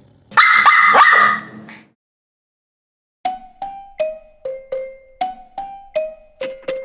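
A chihuahua's high, drawn-out bark lasting about a second and a half. After a short silence, a simple melody of single decaying notes starts, about three notes a second.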